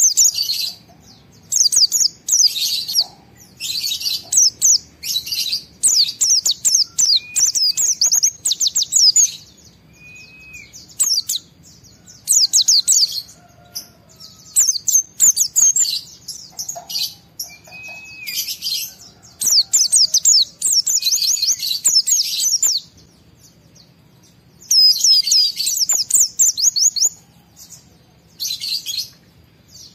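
A white-eye (pleci) in full, excited song: fast, high-pitched chattering phrases of about one to two seconds each, separated by short pauses, with a few lower slurred whistles between them.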